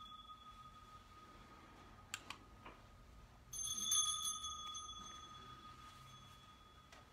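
Small altar bell rung at the elevation after the words of institution over the bread. An earlier ring is fading at the start, and a few light knocks come about two seconds in. About three and a half seconds in, the bell is shaken again in a quick cluster of strokes, and its bright ringing dies away over some three seconds.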